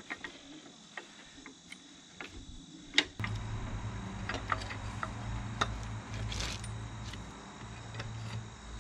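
Scattered light metal clicks and clinks from handling the spring compressors and tools, with one sharp clack about three seconds in. A steady low hum sets in just after the clack and carries on.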